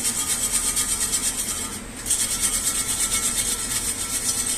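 Paint spray hissing as a welded alloy wheel is touched up, in two long bursts with a brief break about two seconds in.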